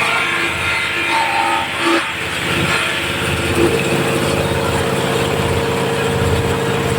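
Palm-frond chopping machine running steadily, driven by its 24 HP diesel engine, with a continuous mechanical drone.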